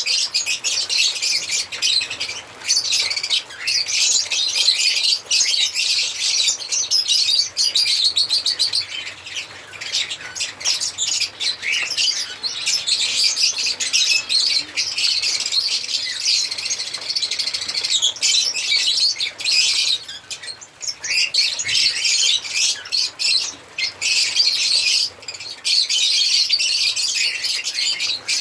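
African lovebirds chirping and singing, a dense run of rapid high-pitched chirps with only a few short breaks.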